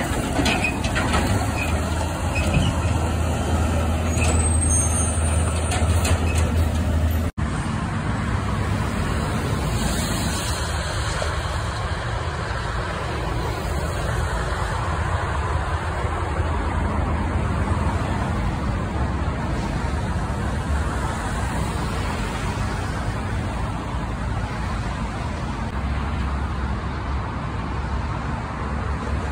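A roll-off dumpster truck's diesel engine running with a heavy low rumble and a brief high squeal about five seconds in. After an abrupt cut about seven seconds in, steady highway traffic noise follows as cars and a tanker semi-truck pass.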